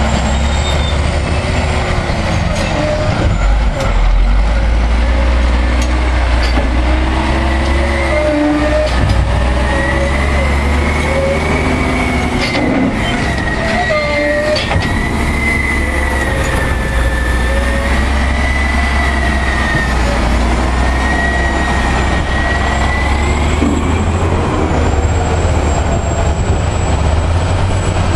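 Diesel engines of a Caterpillar 627G scraper and a Cat 825 soil compactor working under load: a steady heavy rumble, with a whine that slowly rises and falls in pitch through the middle and a few knocks.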